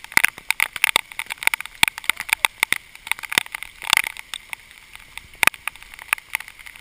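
Heavy rain striking the camera: an irregular patter of sharp ticks, several a second, over a faint hiss of the downpour.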